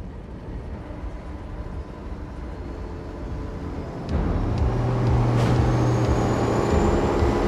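Motorboat engine running at speed with water rushing along the hull, a steady drone that gets suddenly louder about four seconds in as the boat comes close.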